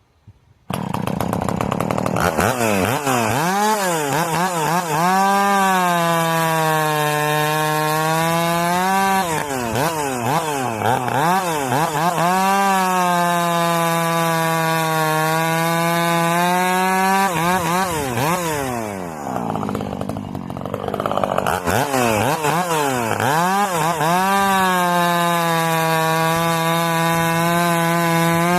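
Two-stroke Husqvarna Rancher chainsaw, ported and piped, starting up, then revved in quick blips and held at high revs for several seconds at a time. It drops back briefly to a low idle about two-thirds of the way through, then revs up again.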